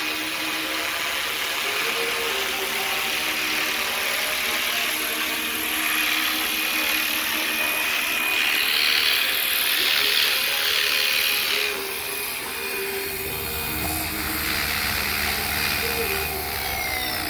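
Electric 450-size RC helicopter (Fly Wing FW450) in flight: steady high motor whine and rotor noise, louder in the middle, as it comes down to land on concrete.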